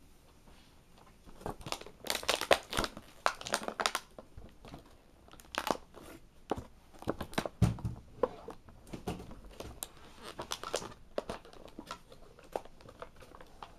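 Plastic toy packaging crinkling and rustling in irregular bursts, with small clicks and scrapes, as twist ties are worked off a packaged action figure.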